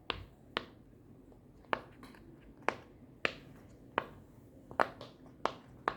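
Silicone pop-it fidget toy shaped like an ice cream being pressed bubble by bubble: about eight short, sharp pops at irregular intervals.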